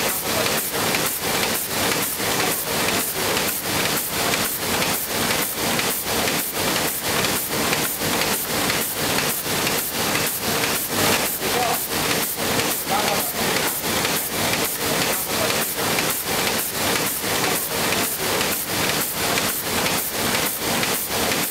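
KBA sheetfed offset printing press running at speed: a loud, even rushing clatter that pulses about two and a half times a second.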